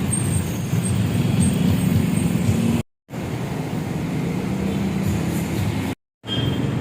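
City street traffic: steady noise of passing cars and buses with engines running, broken twice by brief dead silences where clips are joined.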